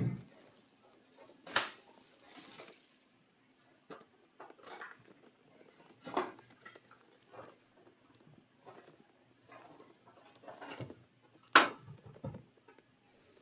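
Hands opening and handling a sealed trading card box: crinkling and tearing of the wrapping with scattered sharp taps and clicks of cardboard and card cases, the loudest a single sharp tap near the end.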